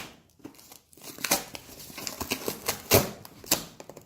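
A cardboard parcel being cut open with a knife: irregular scratching, rustling and crinkling, with a few sharp cracks.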